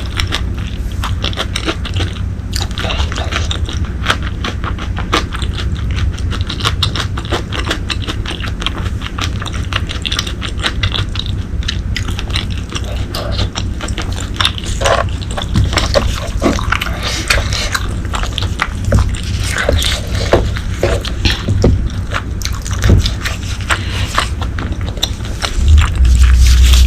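Close-miked eating of braised pork leg: many small irregular wet clicks and smacks of chewing and mouth sounds, over a steady low hum. The hum grows louder near the end.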